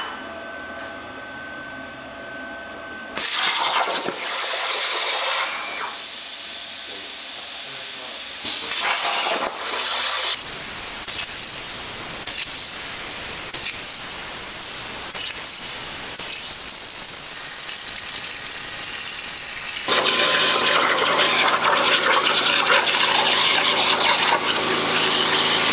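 CNC plasma cutter torch cutting 16-gauge mild steel at 27 amps: a steady, loud hiss of the arc and its air jet, starting about three seconds in after a quieter stretch. It grows louder about twenty seconds in, with a low hum joining it.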